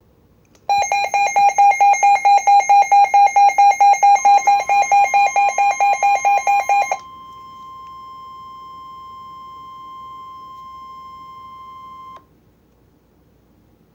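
Emergency Alert System alarm tones: a loud electronic alarm beeping rapidly, about five pulses a second, for about six seconds, joined about four seconds in by a steady single-pitch warning tone in the style of the NOAA Weather Radio alert tone. The steady tone carries on alone, quieter, after the pulsing stops and cuts off sharply about twelve seconds in.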